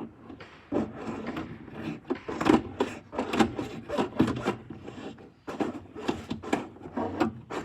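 Hand saw rasping back and forth through the rubber of a stock air intake, in quick, uneven strokes about two a second, with a short pause just past the middle.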